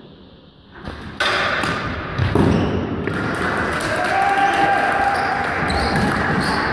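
Indoor hockey play in a sports hall: sharp hits of sticks on the ball and thuds on the wooden floor, starting suddenly about a second in, then continuing with players' shouts, all echoing in the large hall.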